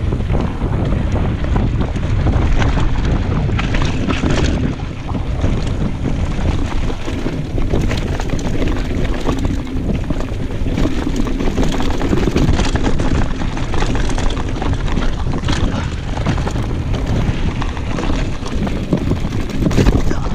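Mountain bike riding down a rough dirt trail: heavy wind rush on the action camera's microphone, with the bike rattling and knocking over bumps.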